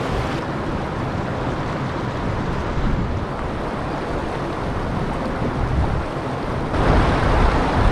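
Steady rushing of river water flowing between boulders, mixed with wind noise on the microphone; it grows louder near the end.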